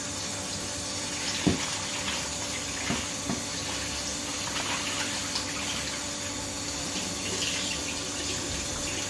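Kitchen tap running steadily into a metal bowl of prawns in a stainless steel sink as they are rinsed, with a few light knocks of the bowl in the first few seconds.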